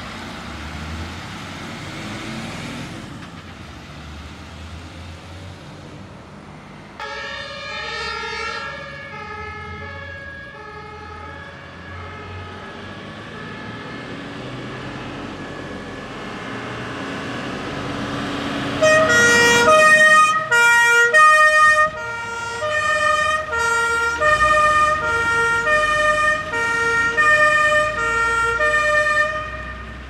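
German fire engines' two-tone sirens (Martinshorn) alternating between a high and a low pitch, over diesel truck engine noise. One horn sounds briefly about seven seconds in and fades; the engine noise then grows as a second truck approaches, and about nineteen seconds in its horn starts, loud and repeating, until it cuts off suddenly near the end.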